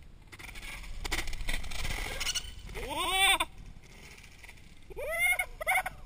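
A downhill mountain bike rattling and scraping over the dirt trail as the rider goes past and crashes, followed by high-pitched yells from onlookers: one long rising-then-falling cry about three seconds in and three short cries near the end.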